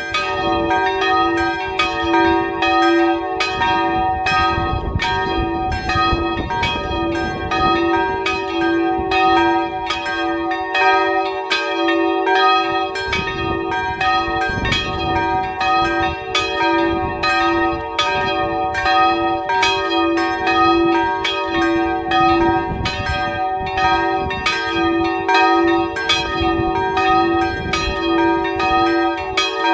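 Three small church bells swinging and ringing together in an open bell gable, their strikes overlapping in a continuous, even peal with long ringing tones.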